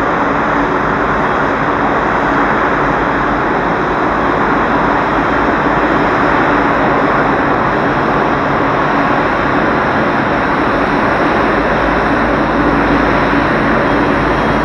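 Jet engines of a Boeing 777-200 airliner running, a loud, steady rushing roar with a faint hum under it.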